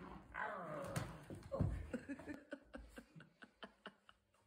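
A Border Terrier puppy making small play noises as it tugs at a feather duster, mixed with a brief human voice and a dull thump. These are followed by an irregular run of light clicks and knocks, about four a second.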